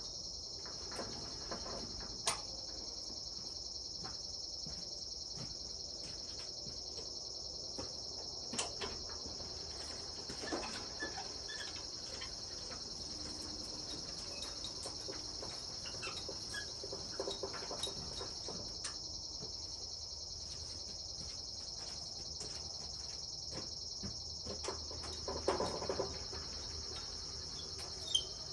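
A steady, high-pitched insect chorus trilling without a break, with a few scattered clicks and knocks and a short cluster of them near the end.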